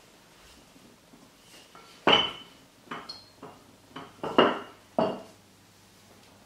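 Wooden rolling pin knocking and clattering against a hard kitchen worktop while tortilla dough is rolled out: about six sharp knocks between two and five seconds in, the first the loudest.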